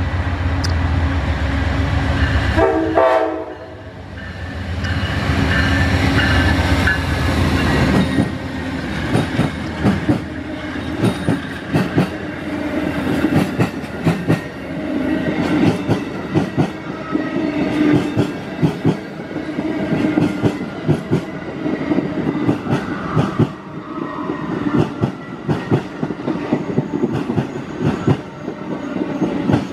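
Amtrak passenger train led by two P42DC diesel locomotives passing close by. The locomotives' diesel engines rumble at first, with a short horn note about three seconds in. From about eight seconds on, the passenger cars' wheels clatter over the rail joints and switches in a quick, uneven run of clicks.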